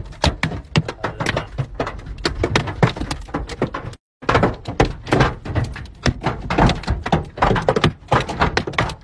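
Hailstones hammering on a car's roof and windshield: a dense, irregular volley of hard knocks, many a second, heard from inside the car. The sound breaks off for a moment about four seconds in.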